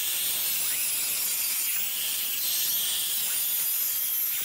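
Corded angle grinder with a V-shaped concrete blade cutting along a driveway crack: a steady high-pitched whine over a gritty hiss, the whine dipping slightly about two seconds in as the blade takes more load. It is opening the crack and clearing loose material to prepare it for sealant.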